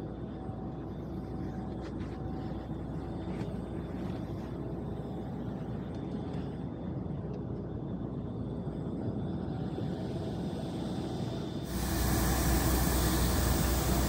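Steady low rumble of an Airbus A220's cabin on the ground after landing, with a few faint clicks. About twelve seconds in, louder background music cuts in suddenly.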